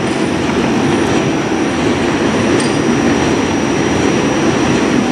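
Pellegrini stone-cutting chain saw running, its chain cutting into the molasse sandstone face: a loud, steady mechanical grinding with a thin, steady high whine over it.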